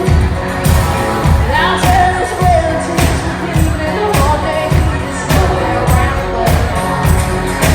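Country song performed live: a singer's voice over a full band with a steady drum beat.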